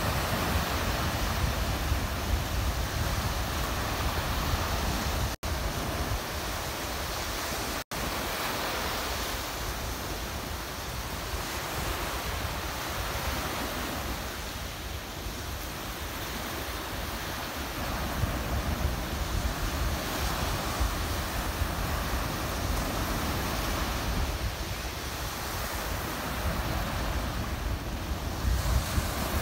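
Small sea waves breaking and washing up a sandy shore, the surf swelling and easing every few seconds, with wind buffeting the microphone. The sound cuts out briefly twice, about five and eight seconds in.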